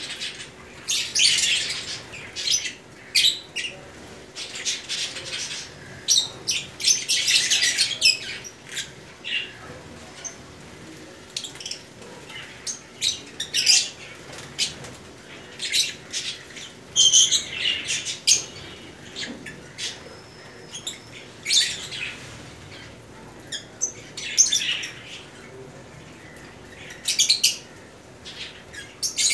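A flock of blue masked lovebirds (personata lovebirds) chattering: shrill chirps and squawks in irregular bursts, several birds calling at once.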